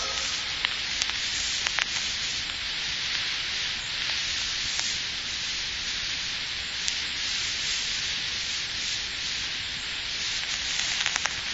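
Steady hiss with scattered clicks and crackle: the surface noise of an old 1940s radio show recording, with no voice or music playing. The clicks come a little more often near the end.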